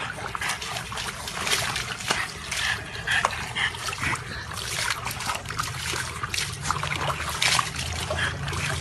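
Water splashing and sloshing in a plastic tub as a French bulldog moves about in it, with many short sharp splashes.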